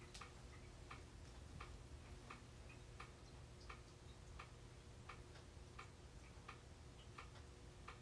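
Ceiling fan running faintly, its motor humming steadily, with a light tick repeating about three times every two seconds as it turns.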